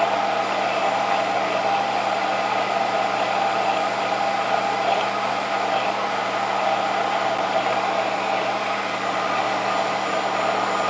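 Nutribullet combo blender's 1200-watt motor running steadily on its high setting, whirring through sea moss and water as it purees them into a smooth gel.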